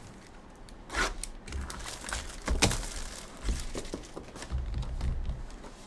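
A foil trading-card pack wrapper crinkling and tearing as it is ripped open, with the cards rustling as they are handled. The rustles come in short, irregular bursts.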